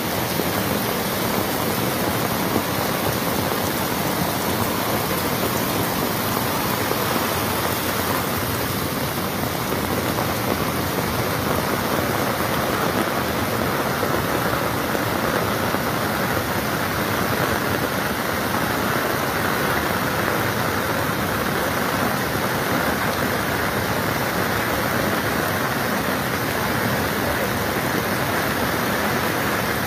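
Steady rushing noise of a muddy river in flood, mixed with heavy rain.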